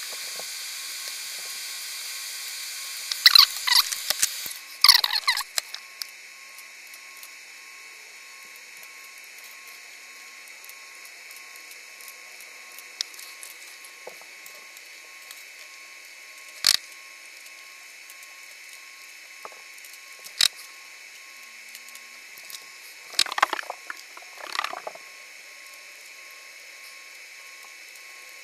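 Solder fume-extractor fan running with a steady hiss and a faint thin whine. Short clicks and scrapes of tools and parts being handled come in a cluster about three to five seconds in, again singly near the middle and in a cluster near the end.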